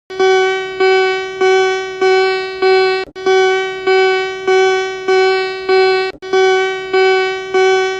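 Electronic alert tone cutting in from silence: one fixed note struck over and over, about five strikes in three seconds, each fading quickly. The run of strikes pauses briefly every three seconds and starts again.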